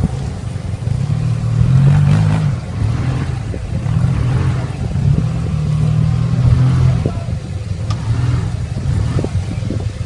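Motorcycle engine running under way, its note rising and falling as the rider accelerates and eases off, over a rumbling road noise.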